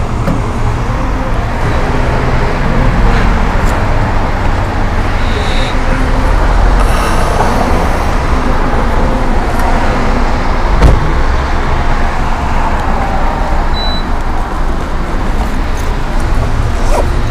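Steady road-traffic noise, with an occasional short knock.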